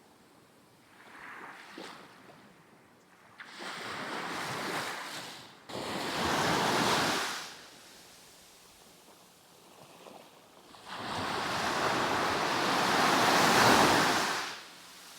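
Caribbean surf: waves breaking and washing up the sand in separate swells, the longest and loudest about eleven seconds in.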